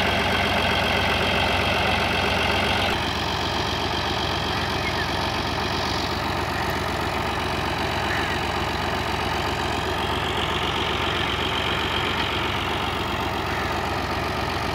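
New Holland Fiat 480 tractor's three-cylinder diesel engine running steadily. About three seconds in, the sound drops slightly and then holds even.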